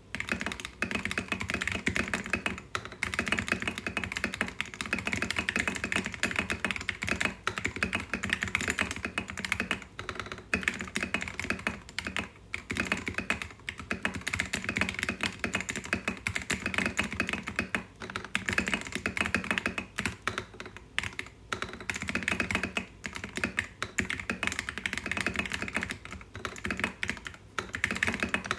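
Steady typing on a Royal Kludge RK71 mechanical keyboard with KTT Mint switches lubed with Krytox 205g0, a quick run of key presses with short pauses now and then. Its spacebar uses a lubed MMD Holy Panda switch on clipped, Holee-modded stock stabilisers.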